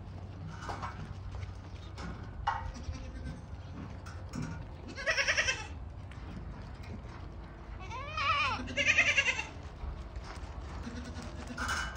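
Yemeni goats bleating: a wavering bleat about five seconds in, two more around eight to nine seconds in, and another near the end.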